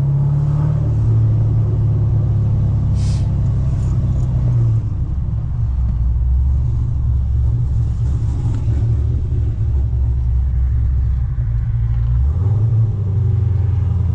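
2010 Chevrolet Camaro SS's 6.2-litre V8 running under way, a steady low drone whose pitch drops about five seconds in and rises again near the end as engine speed changes.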